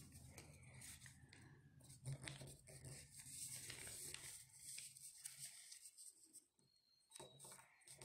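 Faint rustling and crinkling of a square sheet of origami paper being folded and creased by hand, over a low hum.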